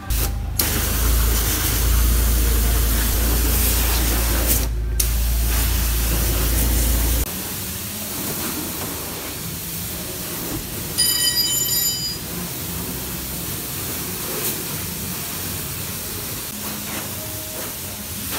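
Car-wash pressure washer spraying water onto a car, a steady hiss. For the first seven or so seconds a deep rumble runs under it, then only the hiss continues. A short high-pitched chirp comes about eleven seconds in.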